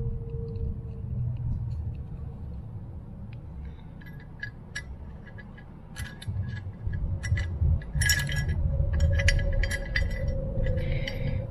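Screwdriver tip clicking and scraping against a Holley 94 carburetor body as the jets are screwed into their threads: a run of small metal clinks, coming thick from about four seconds in, over a steady low hum.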